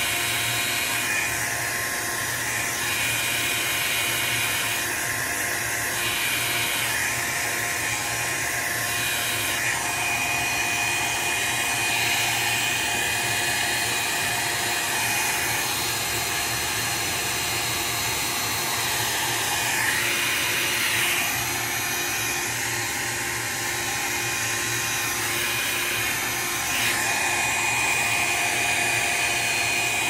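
Electric hot-air blower running steadily: a continuous rush of air with a high motor whine over it, its tone shifting a little a few times.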